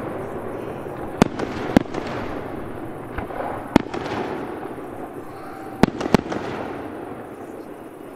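Aerial firework shells bursting: about five sharp bangs spread through the seconds, over a rolling echo that slowly dies away.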